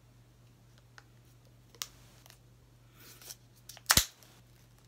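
Handling noise from a USB charging cable and its packaging: a few sharp clicks, a brief rustle about three seconds in, and a loud knock about four seconds in.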